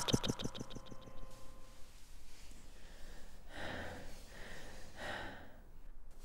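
A woman's sobbing breaths: a quick, stuttering, catching breath at the start, then about three heavy, shaky breaths.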